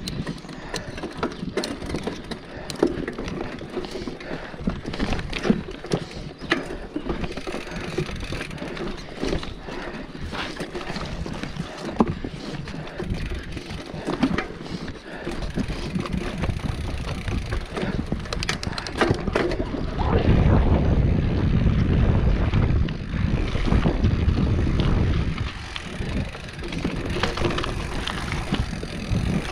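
Mountain bike rolling fast down a rocky dirt trail: frame and chain rattling, with many sharp knocks as the wheels hit rocks and roots. Wind buffets the microphone, heavier about two-thirds of the way through.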